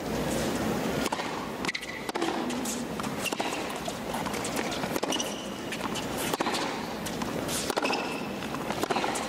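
Tennis rally on a hard court: a ball struck by rackets back and forth, a sharp hit every second or so, with short squeaks of shoes over a steady stadium background.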